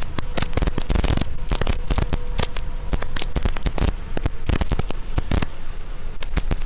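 Heavy rain drumming hard on a vehicle's windshield and roof, a dense, irregular crackle of loud drop impacts over a steady hiss.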